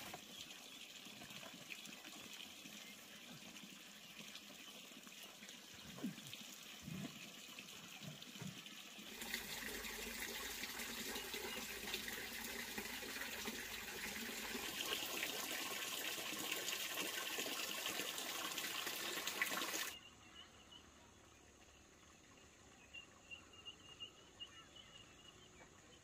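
Running, splashing water, louder from about a third of the way in and cutting off suddenly about two-thirds through; a few dull knocks before it gets louder, and only a faint high thin sound afterwards.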